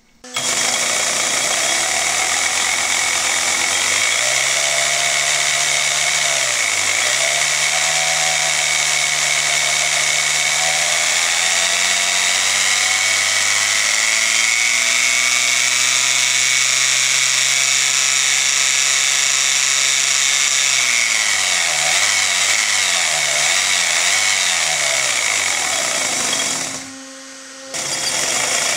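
Brushless RC motor driving a wheel through 3D-printed PETG gears, coupler and axle, running at speed with a steady whirring whine. The pitch climbs slowly as the throttle is ramped up, holds, then rises and falls several times near the end as the throttle is pulsed. It drops away for about a second near the end and then picks up again.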